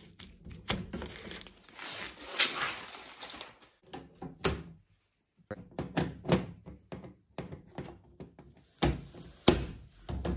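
Protective plastic film being peeled and crinkled off a 3D-printer enclosure panel, then a run of clicks and knocks as the panels are handled, with two louder thunks near the end.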